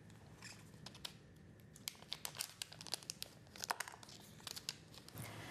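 Faint crinkling and small crackles of the sterile cap and cannula packaging being unwrapped and handled by gloved hands, thin at first and busiest from about two seconds in.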